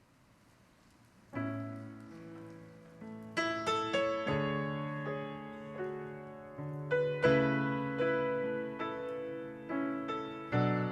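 Near silence, then about a second and a half in a piano begins a slow song introduction, playing chords with single notes struck over them, each fading before the next.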